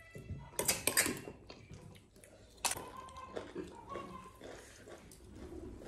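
Eating at a table: a metal spoon clinking and scraping against dishes, and snail shells being handled on a plate, with a few short noisy bursts early on and a sharp click about halfway through.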